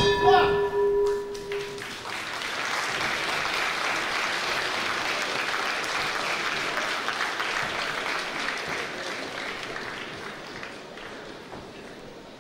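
Boxing ring bell ringing out and dying away in the first two seconds, marking the end of the fight, then an arena crowd applauding for several seconds, fading out near the end.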